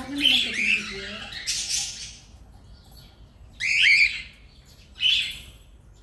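Cockatiel squawking: a burst of harsh calls over the first two seconds, then two short squawks about four and five seconds in.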